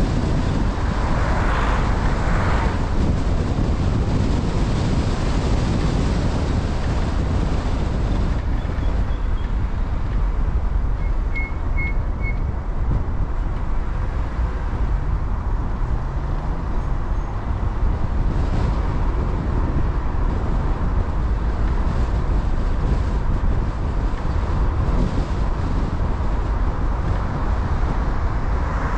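Steady road and wind noise from a car driving along a town road, with a brief rising engine note about halfway through as it pulls away.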